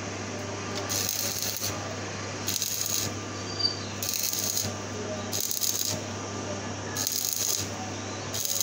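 Stick (arc) welding on a small steel sleeve, the arc crackling in short bursts about every second and a half over a steady low hum.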